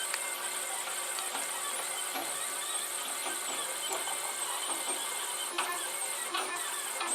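Protomaker FDM 3D printer running a print, its stepper motors working the head and bed. It makes a steady sound with a constant high whine and faint scattered ticks.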